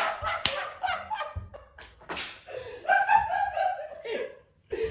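About four sharp hand claps in the first two seconds, followed by loud laughing voices.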